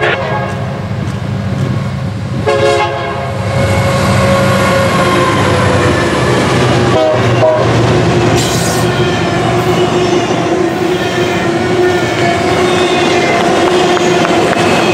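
Diesel freight locomotive sounding its horn in the first few seconds as it approaches, then its engine rumbling by. A double-stack container train follows, its wheels clicking over rail joints with a steady wheel squeal.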